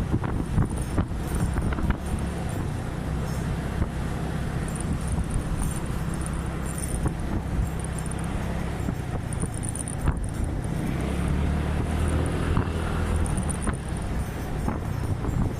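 Small scooter engine running at road speed, heard from on board, with wind buffeting the microphone. The engine grows a little louder about eleven seconds in.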